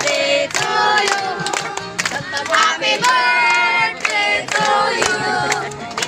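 A group of women and children singing together, with hand-clapping.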